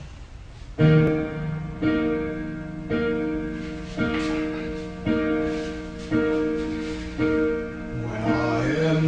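Slow piano intro, the same chord struck about once a second and left to ring, with a voice starting to sing near the end.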